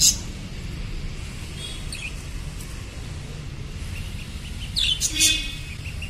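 Caged budgerigars chirping in short high calls: one right at the start, a couple of faint ones about two seconds in, and a louder run of chirps about five seconds in, over a steady low background hum.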